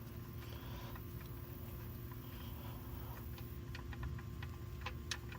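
Faint, scattered light clicks and ticks over a steady low hum, from the oil pan drain plug and tools being handled under the truck.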